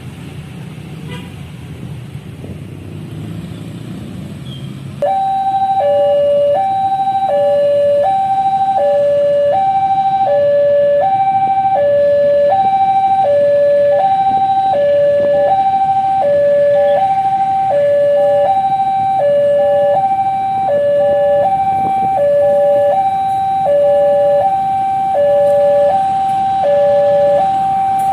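Road traffic rumble, then about five seconds in a railway level-crossing warning siren comes on suddenly and loudly. It alternates steadily between a high note and a low note, each held about two-thirds of a second.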